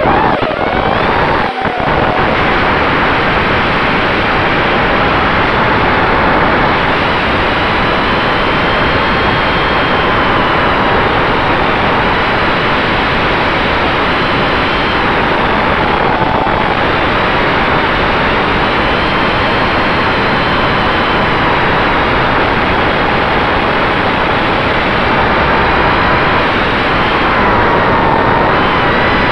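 Eachine Wizard X220 FPV racing quadcopter in flight, heard from its onboard camera: motors and propellers whining over a dense rushing noise, the pitch rising and falling as the throttle changes.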